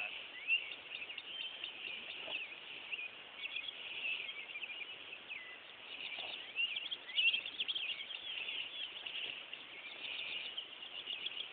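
Birds chirping and calling in many short, overlapping notes, a steady busy chorus with no pause.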